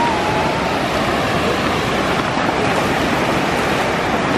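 Ocean surf washing steadily in the shallows, with wind rumbling on the camera's microphone.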